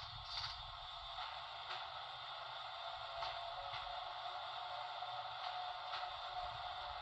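Electrotren Renfe 470 model train running with its digital sound playing: a steady hiss and hum with a tone that rises slowly, and light regular clicks about every half second.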